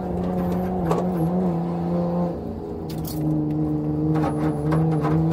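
Nissan R33 Skyline GT-R's RB26DETT twin-turbo straight-six, heard from inside the cabin, running at a nearly steady engine speed. The level dips briefly about two and a half seconds in, and a few sharp clicks and rattles come near the end.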